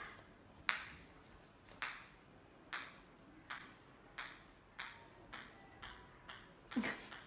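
Small ball bouncing on a tile floor, a series of sharp pings coming closer and closer together as it settles. A cat gives a short meow near the end.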